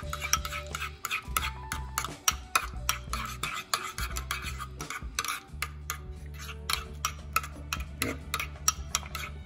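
Metal spoon stirring a thick mayonnaise sauce in a small ceramic bowl, clicking and scraping against the bowl's sides several times a second.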